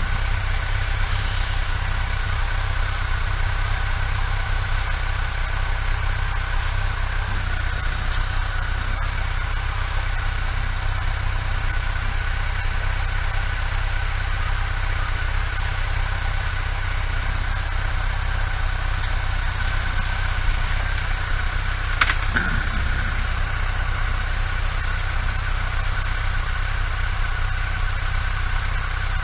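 Motorcycle engine running steadily, with a faint steady whine above it and one short sharp click about three quarters of the way through.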